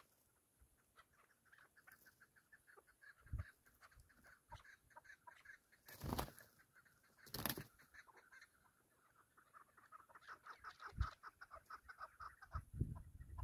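Chukar partridges calling faintly in quick runs of clucking notes. Two brief louder bursts of wing-flapping come a little past the middle as one bird flutters up.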